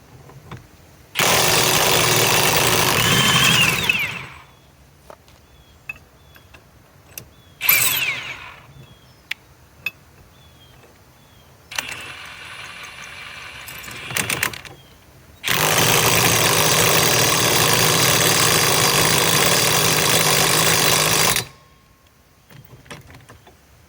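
Ridgid high-torque cordless impact wrench hammering on a tight 1-1/2-inch nut, trying to break it loose. It runs in bursts: about three seconds, then a brief one, then a quieter stretch of about three seconds, and last a long burst of about six seconds.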